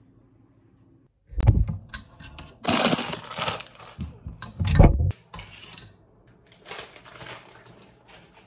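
Household handling noises close to the microphone: two heavy knocks, one about a second and a half in and one near the five-second mark, with scraping noise between them and fainter scraping later.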